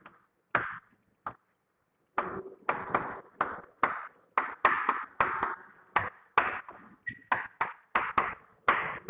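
Chalk writing on a blackboard: a string of short taps and scratches, about two strokes a second, with one brief squeak of the chalk about seven seconds in.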